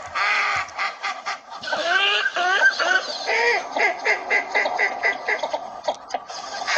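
Northern shoveler ducks calling: quick runs of nasal quacks and clucks, with a few longer honking notes that bend in pitch about two seconds in.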